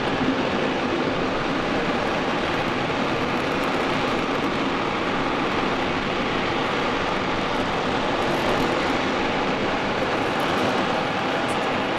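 RS-25 rocket engine, the former Space Shuttle Main Engine, firing on a test stand: a loud, steady, unbroken noise of exhaust.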